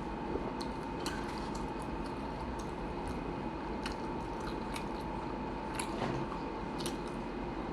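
A person chewing a sandwich close to the microphone: short wet mouth clicks scattered every second or so, over a steady background hum.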